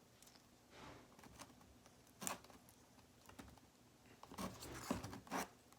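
A spoon tapping and scraping against a cup as baking soda is mixed in: faint, irregular light clicks and short scrapes, coming more often in the last couple of seconds.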